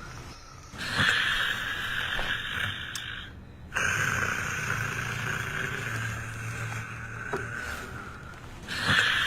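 A person snoring in sleep: long, rasping breaths that start abruptly about a second in, again at about four seconds and once more near the end, with a low rumble under some of them.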